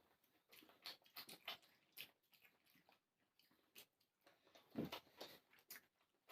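Faint chewing and mouth noises of people eating hard-boiled eggs: scattered short soft smacks and clicks, a little louder just before five seconds in.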